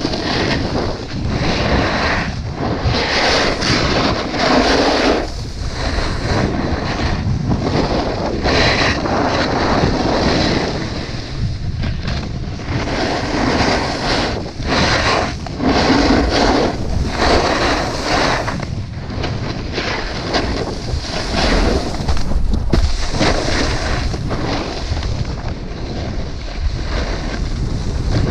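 Wind rushing over the microphone of a snowboarder's body-worn camera during a descent, with the snowboard scraping over hard-packed, tracked snow in surges that come and go every second or two.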